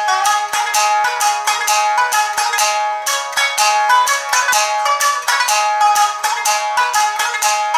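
Shamisen played solo in the Nanbu style: a brisk, even run of sharp plectrum-struck notes, about four or five a second, with a few notes sliding in pitch.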